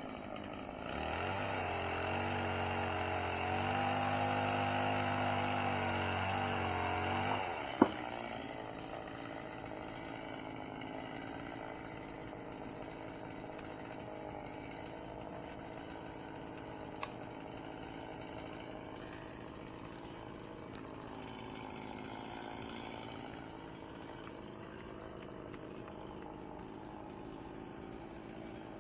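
An engine running steadily for about six seconds, its pitch rising a little partway through, then a sharp loud click; after that a fainter steady engine hum continues.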